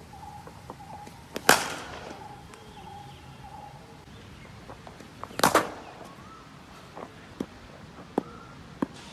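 Cricket ball struck by a bat in the nets: two loud sharp cracks, one about a second and a half in and another about five and a half seconds in. Three fainter knocks follow near the end.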